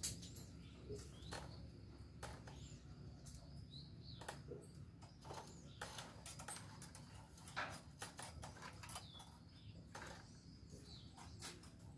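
Faint outdoor quiet with a few short, scattered bird chirps and irregular light clicks and crackles.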